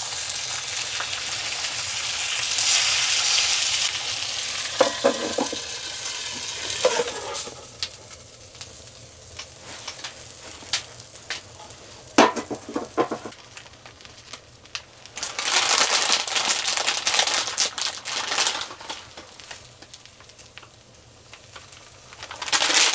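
Pizza sizzling in a metal pan on a small wood stove, the sizzle swelling loud at the start and again in the second half. Scattered clicks and short scraping sounds of metal pans being handled come in between.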